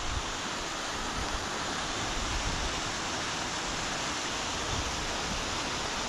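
Steady, even rush of water from a rain-swollen waterfall and stream running down a hillside.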